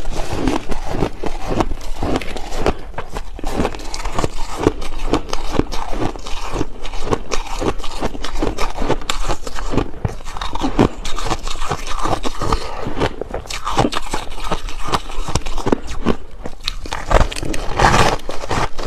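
Biting and chewing soft white ice close to the microphone: a dense run of crisp crunches, several a second.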